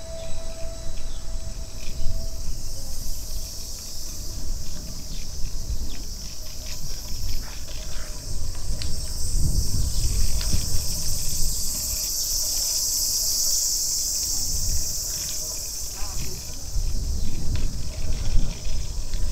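Summer cicadas buzzing in a dense, steady, high-pitched chorus that swells to its loudest a little past the middle and eases off near the end, over a low rumble.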